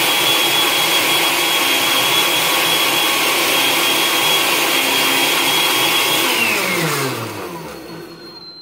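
Oster Dual-Action blender motor running steadily on high while blending water, with a steady whine. About six seconds in it is switched off and winds down, the pitch falling as it fades. Near the end a thin, high, steady squeal comes in, like a leaking balloon: a dog whining along with the blender.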